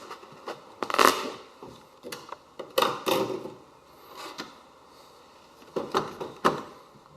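Irregular clattering knocks and scrapes, hard objects handled or worked, coming in several clusters.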